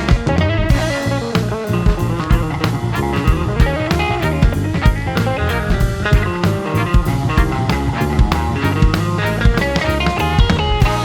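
Rock music: guitar, bass guitar and drum kit playing with a steady beat, no singing.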